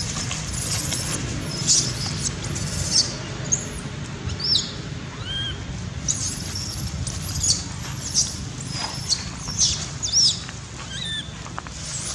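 Baby long-tailed macaque crying in short, high-pitched squeals, repeated about a dozen times, with a few shorter chirps between, over a steady low rumble.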